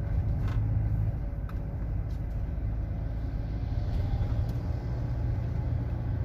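Car driving along a town street: a steady low rumble of engine and tyre noise.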